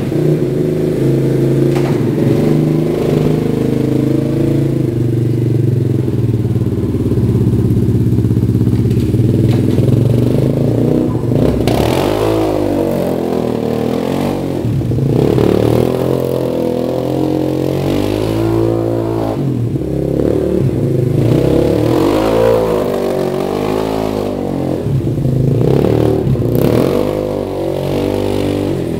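Suzuki LT-Z250 quad's single-cylinder four-stroke engine runs at a steady pitch for about ten seconds, then is revved up and down over and over as the quad drifts on snow.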